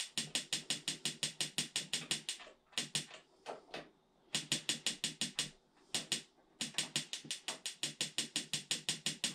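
Mr. Heater Buddy Flex propane heater's igniter clicking rapidly, about six clicks a second, in three runs with short pauses, while the knob is held in on the pilot setting. The heater fails to light, which the owner takes for it starving for fuel.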